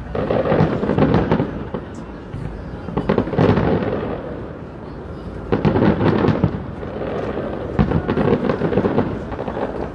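Fireworks display: aerial shells bursting in rapid volleys, booms and crackling following close on one another in several dense clusters.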